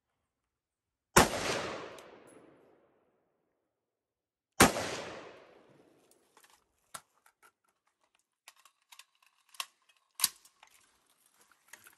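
Two rifle shots from an AR-15-style rifle, about a second in and three and a half seconds apart, each echoing and fading over a second or more. Then a scatter of lighter clicks and clacks as the rifle is handled.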